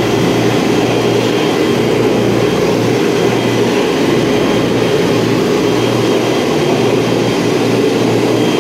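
Walk-behind floor sander running steadily as it is pushed over the floor, a loud, even machine drone with a constant low hum.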